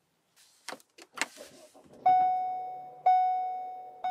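A Ford car's dashboard warning chime: a single clear bell-like tone that rings once a second and fades between strikes, starting about halfway through after a couple of short clicks.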